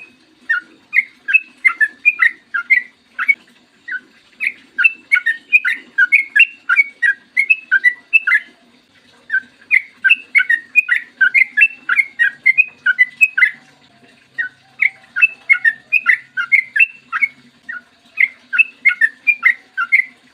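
Yellow-vented bulbul singing long runs of quick, bubbly notes in repeated bursts with brief pauses between them.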